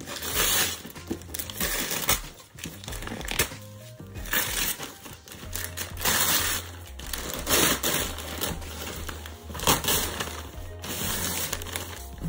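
Glossy gift wrap crinkling and tearing in repeated bursts as it is pulled off a package by hand, over background music with a low bass line.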